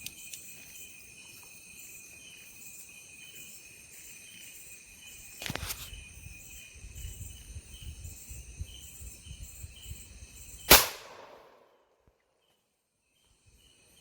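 Steady chorus of insects, a sharp click about five and a half seconds in, then a single very loud rifle shot near the end whose echo trails off over about a second.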